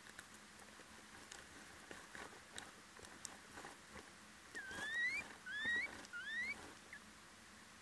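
Little owl in a wooden nest box: faint scratching and sharp clicks of its feet and beak on the nest litter, then three short squeaky calls, each rising in pitch, a little under a second apart about two thirds of the way through.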